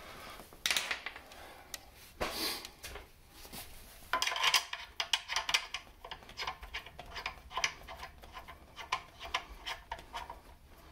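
Light clicking and ticking of small metal parts on a high-pressure air hand pump as the dust cover is put back on: a couple of knocks at first, then a quick run of small clicks from about four seconds in.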